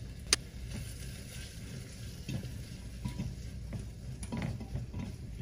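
Garlic and jalapeños sizzling in butter in a glass pot, stirred with a silicone spatula in irregular strokes from about two seconds in. A single sharp tap, the loudest sound, comes just after the start.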